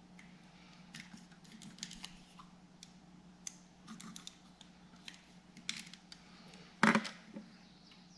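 Sharp little clicks and snips of a hand wire stripper working the end of a single-core electrical wire, baring more straight copper, with one louder knock near the end. A faint steady low hum underneath.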